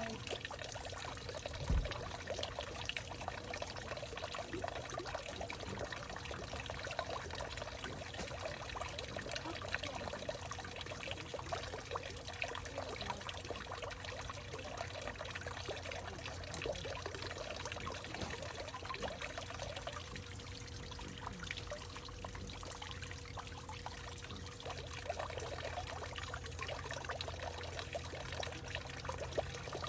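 Water steadily trickling and pouring into a hollowed-out tree trunk, with a brief low thump about two seconds in.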